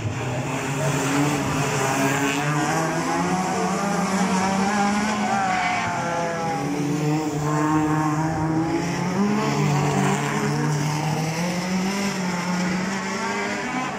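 National Hot Rod race cars' engines revving hard as they lap an oval, several at once, their pitch rising and falling as the drivers accelerate and lift through the bends.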